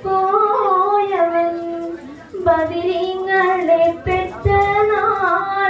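A young woman's voice singing solo and unaccompanied into a microphone, with long held, gliding notes and short breaths about two and four seconds in.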